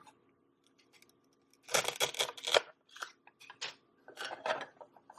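Velcro toy avocado halves being cut apart with a toy knife: a rough tearing crackle of the Velcro coming apart about two seconds in, followed by lighter clicks and crackles as the pieces are handled.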